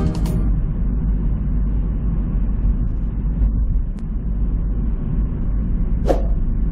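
Steady low rumble of a car driving along a road: engine and tyre noise. About six seconds in, a short sharp sound effect cuts in.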